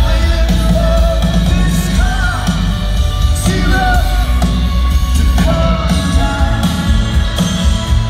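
Live rock band playing through a big outdoor PA, with a lead voice singing over guitars, drums and heavy bass. It is loud and bass-heavy, as heard from the crowd on a phone.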